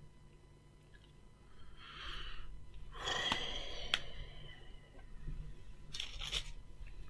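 A man breathing out heavily a few times, soft hissing exhales, with two sharp clicks between about three and four seconds in.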